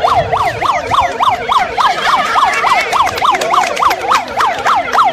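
Electronic emergency siren sounding a fast yelp: a loud wail sweeping up and down in pitch about three to four times a second, without a break.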